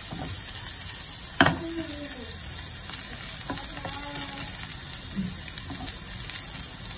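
Chopped salted turnip sizzling in a little oil in a nonstick pan over low heat, a steady high hiss, as it fries dry and crisp. A bamboo spatula stirs it and knocks once sharply on the pan about a second and a half in.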